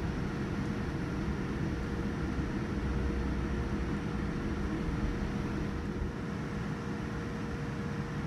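Steady cabin noise of a Boeing 787-9 taxiing after landing: a low rumble and an even rush of engine and cabin air, with a faint steady hum-tone under it.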